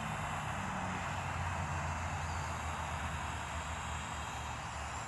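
Small remote-control toy helicopter in flight: a steady whir from its electric motor and spinning rotors.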